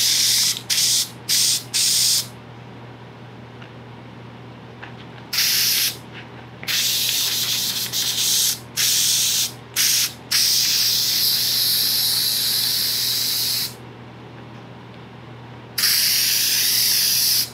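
Aerosol can of headliner spray adhesive hissing in a series of bursts as glue is sprayed on: several short squirts at the start, then longer sprays of one to three seconds each.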